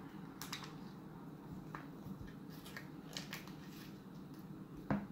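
Faint crinkling and rustling of a small paper wrapper on a toy carton as it is handled and peeled open by hand, with one sharper click near the end.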